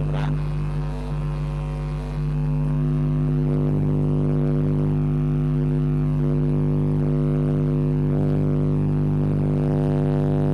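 A steady, loud electrical hum or buzz, one low pitch with many overtones, held unchanged with a brief dip about a second in; interference on the online class's audio line.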